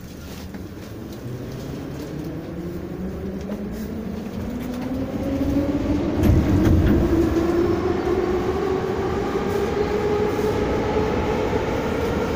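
An Ezh3 metro car gathering speed, its traction motors and gearing whining steadily higher in pitch over the rumble of wheels on rail. The sound gets louder as the train speeds up, with a heavier low rumble about six seconds in.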